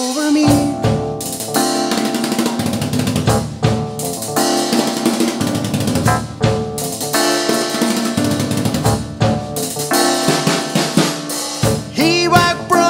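Drum kit and electric keyboard playing an instrumental rock passage: snare and bass drum hits under sustained keyboard chords, with no singing.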